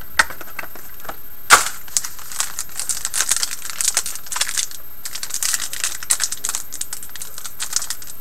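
Foil hockey card pack being handled and torn open, the wrapper crinkling and crackling in a quick run of sharp ticks, after one louder snap about a second and a half in.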